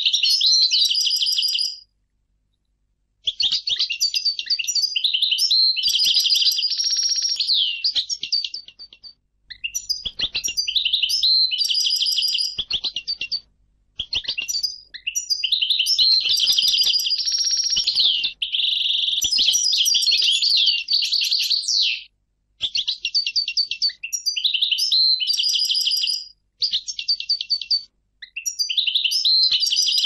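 European goldfinch singing in long, fast twittering phrases of trills, broken by several short pauses.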